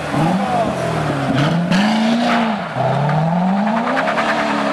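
Chevrolet Corvette C6 V8 accelerating away. The revs climb, fall back sharply twice as it shifts up, then climb again.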